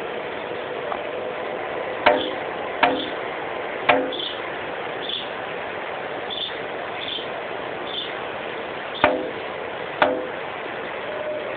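A female sanhaço tanager knocking on window glass: five sharp taps, each with a brief ringing after it. Three come within about two seconds, then two about a second apart near the end, over a steady hiss.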